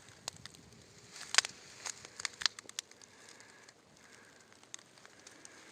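Dry leaf litter crackling underfoot: irregular sharp clicks and crackles, the loudest a little over a second in and about two and a half seconds in.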